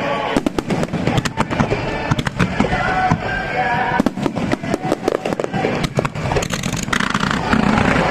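Aerial fireworks going off in a rapid string of bangs and crackles, with music playing under them.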